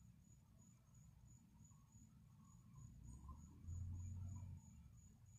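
Faint insect chirping outdoors: a thin, high-pitched pulse repeating about three times a second. About three and a half seconds in, a brief low rumble rises over it for about a second.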